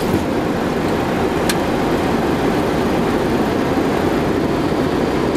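Steady rushing noise of a Boeing 737-800 in motion, heard inside the flight deck: jet engine and airflow noise at an even level. A single brief click comes about one and a half seconds in.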